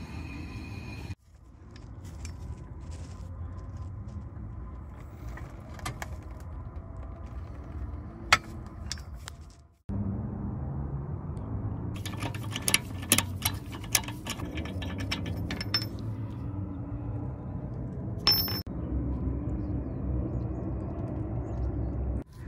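Metal wheel bolts and hand tools clinking and clicking as a car wheel is bolted onto its hub, over a steady low rumble. There is a dense run of clicks about twelve seconds in and a brief high ring later on.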